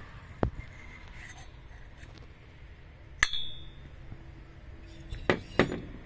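Sharp metallic knocks and clinks from parts of a disassembled Husqvarna 365 chainsaw being handled. There are four knocks; the one about three seconds in is the loudest and rings briefly, and the last two come close together near the end.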